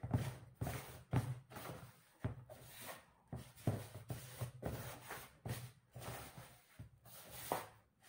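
A hand rubbing and stirring dry flour in a plastic basin, working oil into the flour for chapati dough, in repeated irregular brushing strokes roughly two a second.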